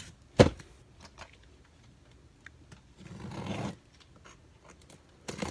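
Cardboard and packaging being handled while digging through an opened case: one sharp knock about half a second in, then light clicks and a brief rustle.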